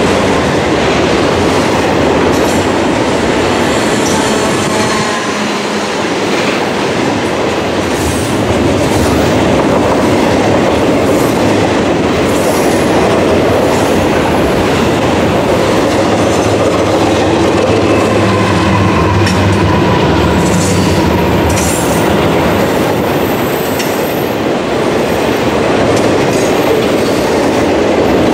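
A double-stack intermodal freight train's well cars roll past with a steady loud rumble and clatter of wheels over the rail. In the middle stretch a deeper engine drone builds from the mid-train remote GE ES44AC diesel locomotive (DPU), and there is some faint wheel squeal on the curve.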